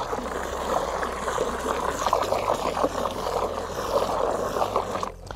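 A hose spray gun's jet blasting into a plastic bucket of water and car shampoo, splashing and churning it up into foam. The spray cuts off near the end.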